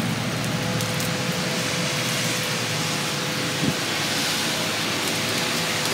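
Heavy rain pouring down, a steady, even rushing hiss.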